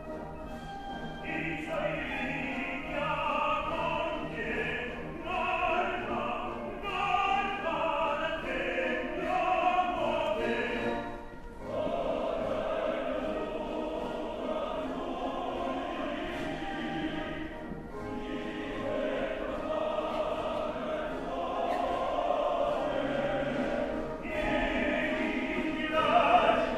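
Opera recording: a tenor sings with orchestra, with quickly moving phrases in the first half and longer held notes with a wide vibrato after that.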